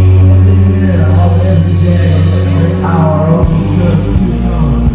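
Live rock band playing loud, with a heavy low bass note held under a man singing into a microphone.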